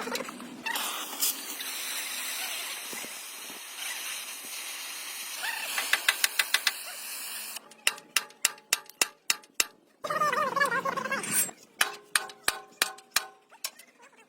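A steady hiss, then from about halfway a run of sharp knocks on metal, about three a second, each leaving a short ringing tone.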